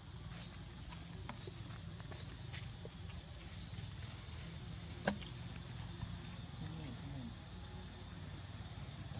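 Quiet outdoor ambience: a short rising chirp repeats about once a second over a steady high thin whine, with a single sharp click about five seconds in.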